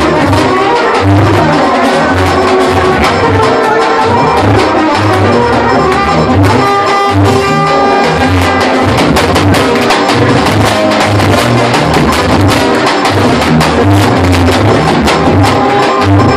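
Balkan Romani brass band playing live and loud: trumpets, trombone, saxophone and accordion over a steady beat on a big bass drum.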